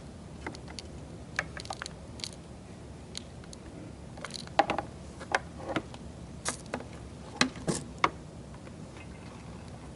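Irregular light clicks and knocks of hand tools and parts being handled, most of them between about four and eight seconds in.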